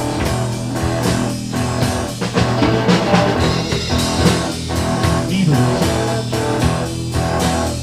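Instrumental break in a blues-rock song: guitar playing over a steady drum beat, with no singing.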